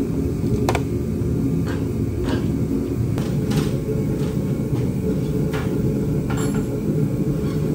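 Steady low hum of machinery in a metal hangar, with scattered light knocks and clicks of tools and metal parts being handled at a helicopter's rotor head.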